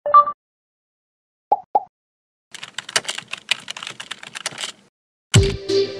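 Computer keyboard typing sound effect: a quick run of key clicks lasting about two seconds, preceded by a short two-tone blip and two single clicks. Synth music with a low bass note comes in near the end.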